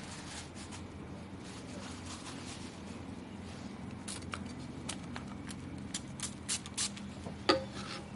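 A low steady hum under a run of small, sharp clicks and taps in the second half, about a dozen, with the loudest one near the end.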